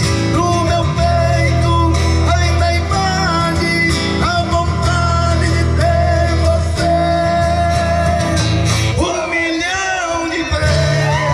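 Country-style music: guitar and steady bass notes under a singing voice, with the bass dropping out for about a second and a half near the end.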